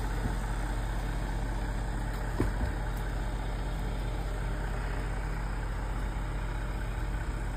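Concrete pump truck's engine running steadily, a low even drone, with a faint knock about two and a half seconds in.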